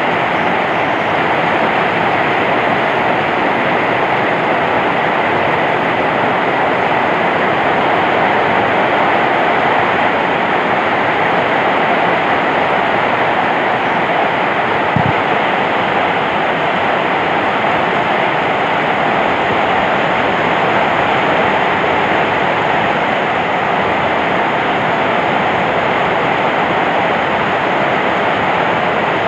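Heavy rain pouring down, a steady, even rush with one brief knock about halfway through.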